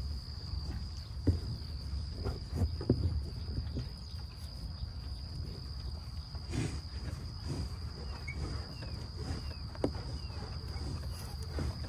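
American bison grazing right at the microphone, tearing and chewing grass in irregular crunching pulls, over a steady high insect trill.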